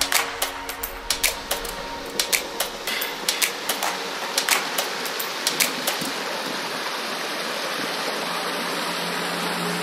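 Shallow mountain stream rushing over stones and logs, a steady hiss of water. Over it, for about the first six seconds, a run of sharp footfalls and knocks on wooden plank steps; after that only the water.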